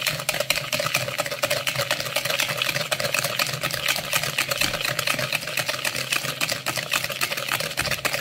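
Wire whisk beating eggs and sugar in a plastic bowl: a rapid, steady clicking and scraping of the wires against the bowl.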